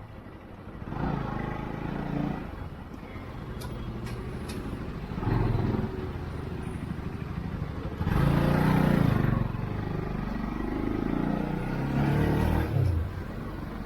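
Bajaj Pulsar NS200 motorcycle's single-cylinder engine running while the bike is ridden, its pitch rising and falling several times. A loud burst of rushing noise comes about eight seconds in.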